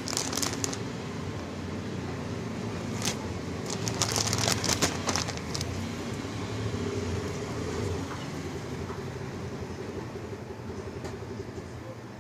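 Clear plastic packaging crinkling in short bursts as a hand leafs through packed cloth suits, busiest about four to five seconds in, over a steady low background rumble.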